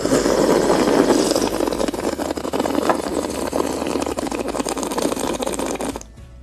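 A person slurping loudly from a small cup through pursed lips close to the microphone: a continuous rattling suck that starts abruptly, holds for about six seconds and stops suddenly.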